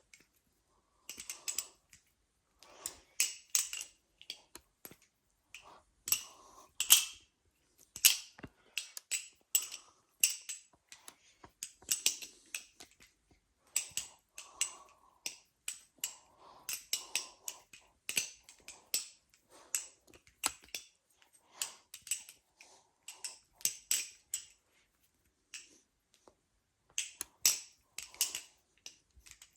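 Armed Shark Glidr OG balisong being flipped and freestyled: rapid, irregular clicking and clacking of the handles swinging round and striking, in quick clusters with short pauses.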